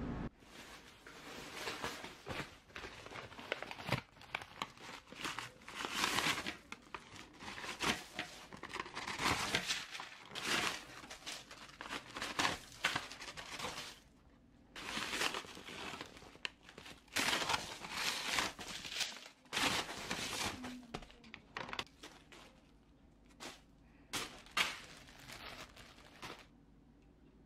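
Paper wrapping crinkling and rustling in irregular bursts as pastries are handled, with a brief pause about halfway through.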